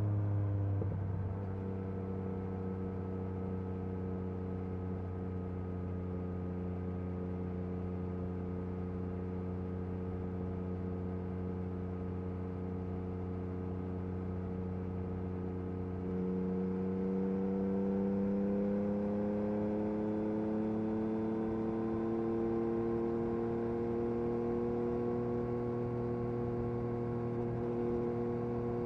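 Yamaha MT-09 SP's three-cylinder engine through an Akrapovic Carbon Racing exhaust while riding: the revs drop quickly at the start, then it runs at steady revs. About halfway through the revs climb smoothly for several seconds as the bike accelerates, then hold steady again.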